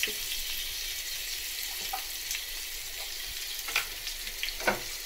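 Steady hiss from a hot, nearly empty kadai on a gas burner, with scattered crackles and two sharper ticks near the end.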